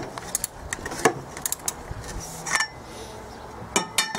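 Metal hand tools clicking and clinking against bolts and engine hardware in irregular taps, with a short ringing metallic clink near the end.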